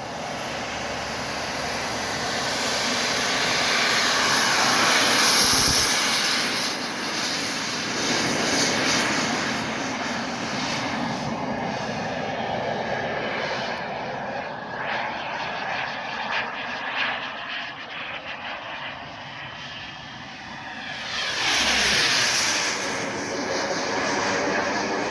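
KingTech turbine of an RC model Rafale jet running with a steady rushing roar and a high whine, swelling loudest twice, about five seconds in and again near twenty-two seconds in, as the jet passes by.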